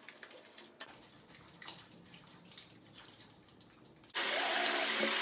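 Soapy hands faintly squishing and rubbing lather over the face, with small wet clicks. About four seconds in, a bathroom sink tap starts running loudly for over a second.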